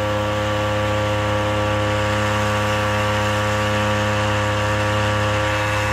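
Small 3 hp two-stroke outboard motor (Toyama, 60.2 cc) running at a steady speed, pushing a kayak along: an even, unchanging engine drone.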